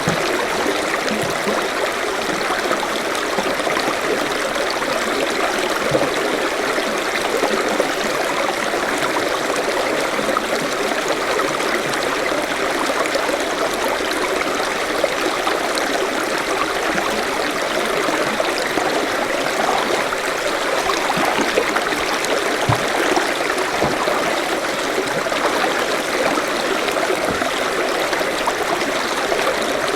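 Forest stream flowing steadily over rocks, a continuous babbling and trickling of water.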